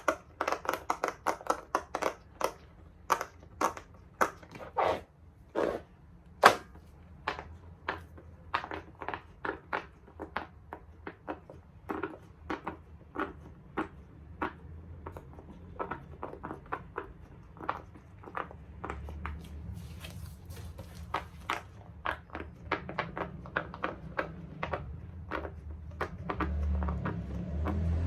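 Large silicone pop-it fidget toy having its bubbles pressed one after another: a steady run of short soft pops, about two to three a second, with a low hum rising underneath near the end.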